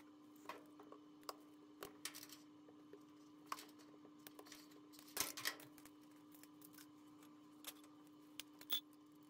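Faint scattered clicks and rustles of a washer's wiring harness and its plastic clips being handled, over a steady faint hum; the loudest cluster of clicks comes about five seconds in.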